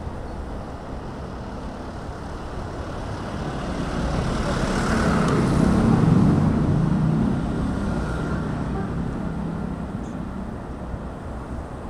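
A car passing close by, its engine and tyre noise swelling to a peak about six seconds in and then fading, over steady street noise.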